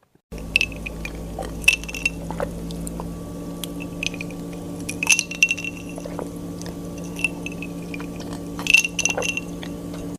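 A drinking glass clinking in short bunches of knocks, three clusters about three seconds apart, over a steady hum. The sound cuts in abruptly and cuts off abruptly.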